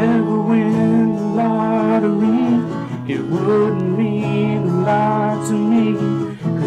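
Country ballad: a man singing over acoustic guitar.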